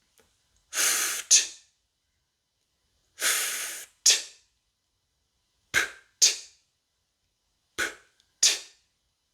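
A person making voiceless consonant sounds in pairs, breath only with no voice: twice a hiss of about half a second ending in a short sharp puff, then two pairs of short puffs. These are unvoiced sounds of the kind that make an -ed ending come out as T.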